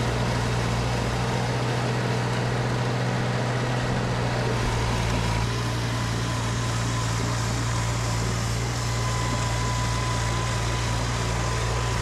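Snowblower engine running steadily while clearing sticky snow, its tone thickening slightly about five seconds in.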